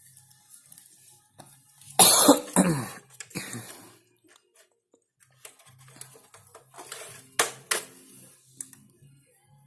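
A person coughs and clears their throat about two seconds in. Two sharp clicks follow a few seconds later.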